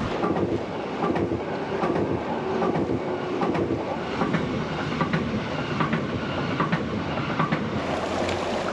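Train running on rails, wheels clicking over the track joints above a steady rumble.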